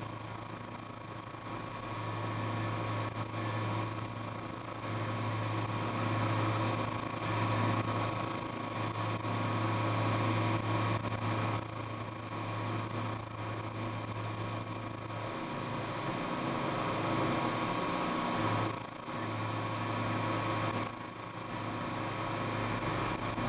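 Milling machine running with a steady hum while an end mill cuts a slot in a soft brass piece, with short, irregular bursts of high-pitched cutting noise.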